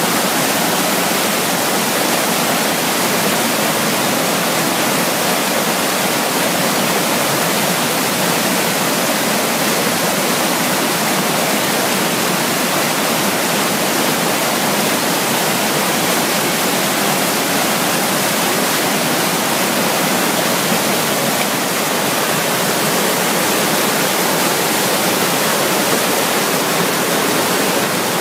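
Mountain stream rushing over boulders and down a small waterfall: a loud, steady hiss of churning white water.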